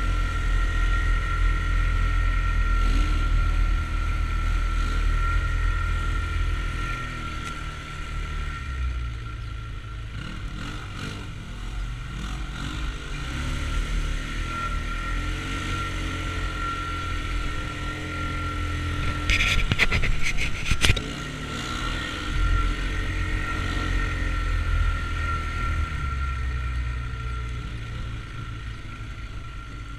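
Off-road side-by-side engines running as one climbs a steep dirt trail: a steady low engine drone with a thin high whine over it, and a short cluster of sharp knocks about two-thirds of the way through.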